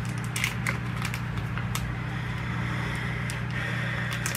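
Steady low electrical hum with scattered small clicks and light crackles.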